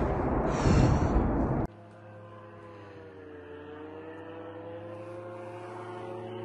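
A loud rushing noise for the first second and a half, then the steady drone of a flying drone's engine, evenly pitched with a slight dip and rise in pitch, growing louder toward the end.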